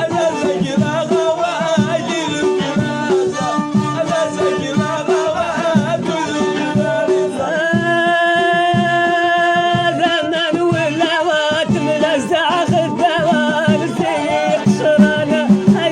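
Folk music played live: a wavering sung melody over a steady rhythmic beat, with one long held note about halfway through.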